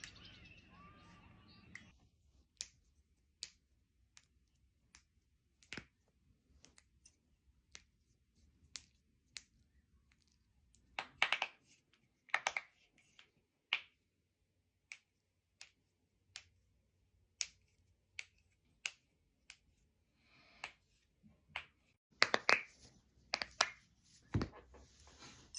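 Joints cracking and popping under chiropractic adjustments: many sharp cracks at irregular intervals, some coming in quick runs of several pops.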